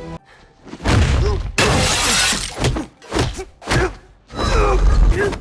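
Martial-arts fight-scene sound effects: sharp blows, then a loud shattering crash of something breaking lasting about a second, with short grunts and shouts between the hits.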